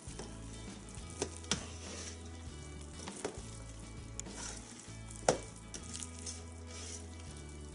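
A utensil stirring thick mashed potato and cheese perogy filling in a stainless-steel stockpot, with wet squelching and scraping and a few sharp knocks of the utensil against the pot, the loudest about five seconds in.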